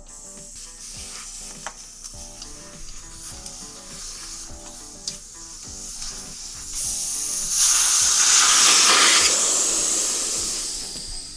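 Air hissing out of a motorcycle tire through the open valve stem with the valve core removed, deflating the tire. The hiss is faint at first, swells into a loud rush about seven seconds in, then tapers off near the end.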